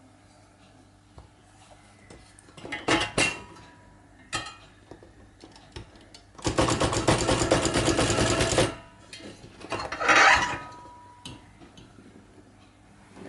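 Clunks and clatter from a 1971 Olympia SM8 portable typewriter as its cover is opened and the machine is handled. In the middle comes a fast, dense mechanical rattle of about two seconds, and another brief clatter follows a couple of seconds later.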